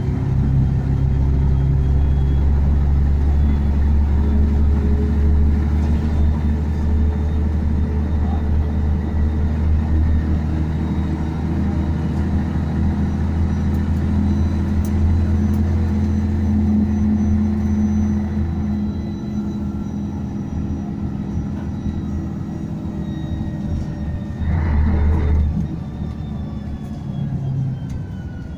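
Scania N113DRB double-decker bus's rear-mounted diesel engine droning steadily under way, heard from inside the passenger saloon. The drone eases about two-thirds of the way through and surges once briefly near the end.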